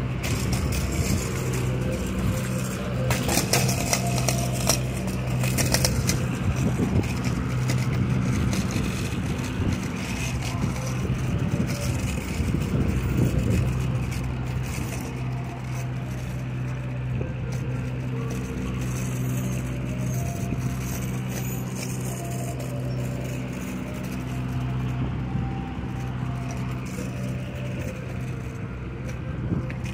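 A motor vehicle's engine running with a steady low hum, under street noise. Scraping and crackling handling noise comes from the handheld phone during the first few seconds.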